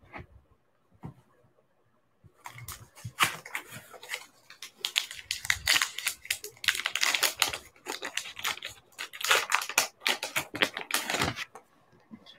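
A baseball card pack's foil wrapper crinkling and tearing as it is ripped open by hand. A dense crackle starts about two seconds in and stops shortly before the end.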